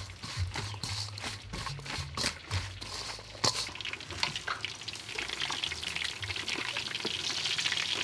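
Hands tossing a wet salad of shredded vegetables and herbs in a metal bowl: a run of quick crackling, squelching clicks. After about four seconds these give way to a steady sizzling hiss of frying oil that grows slowly.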